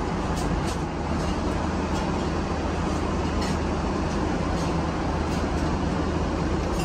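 Steady in-flight cabin noise of a Boeing 777-300ER airliner: the even rush of airflow and engines with a low hum underneath, and a few faint light clicks now and then.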